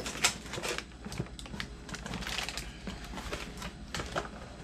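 Irregular light clicks and taps with some rustling, from chainsaw kit parts and their packaging being handled.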